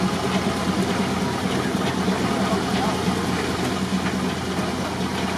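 Steam tractor running steadily while belted to a sawmill: an even mechanical noise with a constant low hum.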